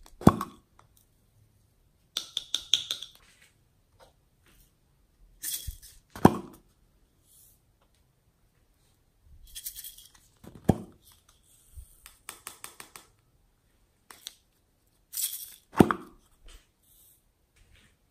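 Small plastic slime containers being opened and handled: four hollow pops, about one every five seconds, as lids come off, with bursts of plastic clicks and crackly rustling between them.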